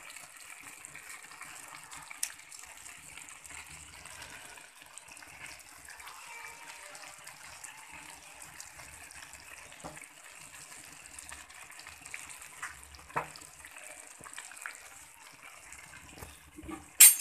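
Biryani rice cooking in a large pot, the last of its water bubbling and hissing steadily as it boils off. A few light knocks come through it, and a louder metal clatter near the end.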